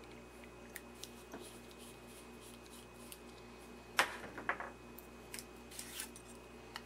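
Quiet hand-handling of a screwdriver and a small paper label over a faint steady hum: a few small clicks and rustles, with a sharper click and crinkle about four seconds in.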